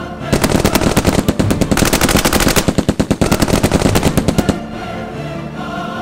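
Rapid automatic gunfire, a dubbed machine-gun sound effect, starting about half a second in and stopping sharply before the fifth second, with a short thinning of the shots midway. Choral music plays underneath and carries on after the firing stops.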